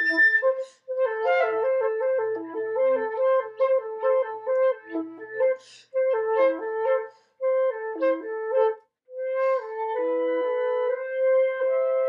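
Two flutes and a piccolo playing together in fast repeated runs and trill-like figures, breaking off for short pauses a few times. Near the end the figures give way to long held notes.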